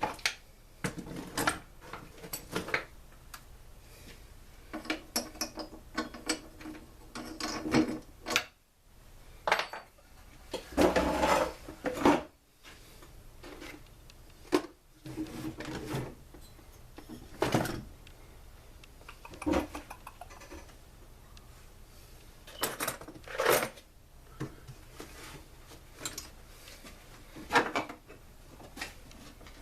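Hand tools and small metal parts clinking, knocking and scraping at irregular intervals while a two-stroke backpack blower is taken apart. A longer scraping, rattling stretch comes about eleven seconds in.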